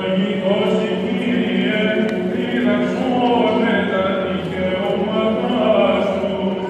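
Greek Orthodox Byzantine chant sung by male voices, a low note held steadily underneath while the melody moves above it.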